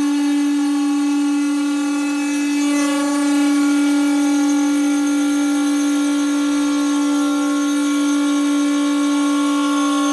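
CNC router spindle running at a steady pitch while cutting quartz stone, a loud constant whine with many overtones. The overtones waver slightly about two and a half seconds in as the cut load changes.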